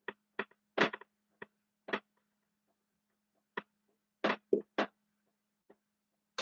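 Dry-erase marker writing on a whiteboard: a series of short scratchy strokes with gaps between them, over a faint steady hum.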